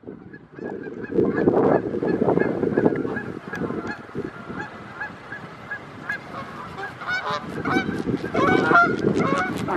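A flock of Canada geese honking in flight overhead: many overlapping honks, loudest in the first few seconds and again near the end.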